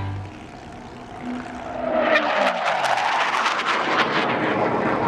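An aircraft flying past at an airshow: its engine tone slides down in pitch as it passes, then about two seconds in the sound swells into a loud, steady engine noise with a rapid crackle.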